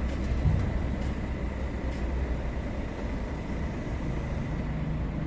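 Mobile crane's engine running steadily while the crane holds a lifted load of rebar, with a dull knock about half a second in.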